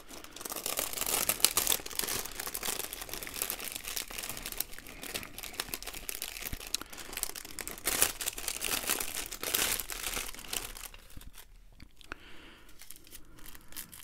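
Clear plastic bags of diamond painting drills crinkling and rustling as they are handled and shifted, a dense crackle of many small clicks. It is loudest early and again about two-thirds through, and fainter in the last few seconds as a single small baggie is fingered.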